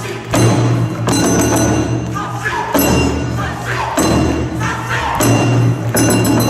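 Loud yosakoi dance music with a heavy, regular beat and group singing.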